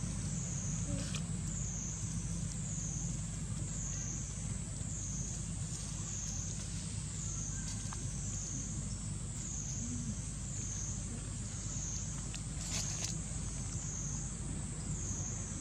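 A chorus of insects, such as cicadas, making a steady high-pitched whine that wavers up and down in pitch about once a second, over a low steady rumble and a few faint clicks.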